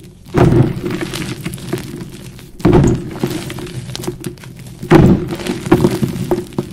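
Broken gym chalk blocks squeezed and crushed by hand in a bowl. There are three loud crunches about two seconds apart, each trailing off into softer crackling as the powdery chunks crumble between the fingers.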